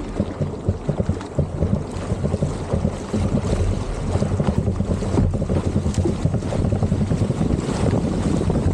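Wind buffeting an action camera's microphone, over water sloshing and splashing around a two-person surfski as it is paddled through choppy sea.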